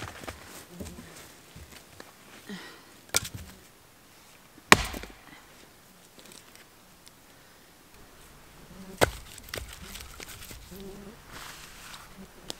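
Hatchet splitting firewood: three sharp chops, about 3, 5 and 9 seconds in, with wood pieces knocking and shuffling in between.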